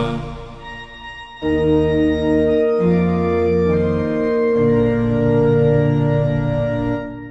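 Background music: an organ playing slow, sustained chords that change every second or two, dying away near the end.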